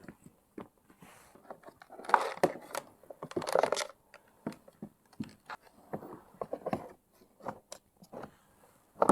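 Hands handling and fitting plastic parts of a Kärcher OC3 portable washer during reassembly: scattered clicks and knocks, with louder scraping about two seconds in and again around three and a half seconds in.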